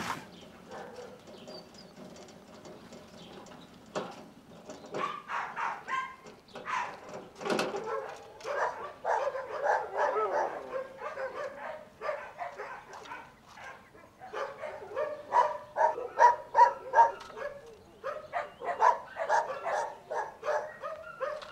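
Many shelter dogs barking in their kennel runs, the barks overlapping. The barking thickens about five seconds in and is loudest past the middle.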